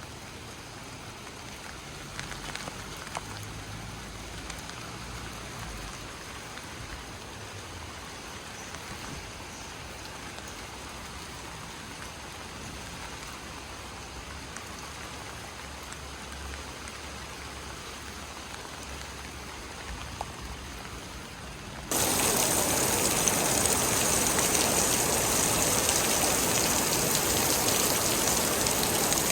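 Steady rain falling, an even hiss of drops. About 22 seconds in it jumps abruptly to a much louder, heavier downpour.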